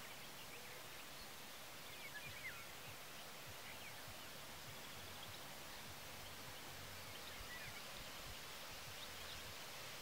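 Faint wild birds giving a few scattered short chirps over a steady outdoor hiss, the clearest calls about two seconds in.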